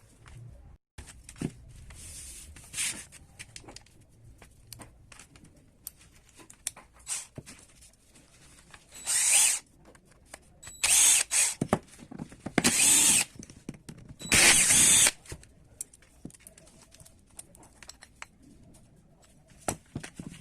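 Four short, loud bursts of a workshop tool running, each about a second long, with small handling clicks and knocks between them.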